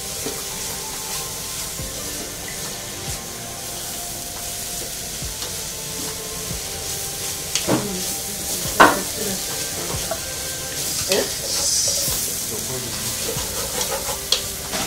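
Meat-and-carrot filling frying in a pan with a steady sizzle as it is stirred. A few sharp knocks or scrapes of the utensil against the pan come in the second half, the loudest a little past the middle.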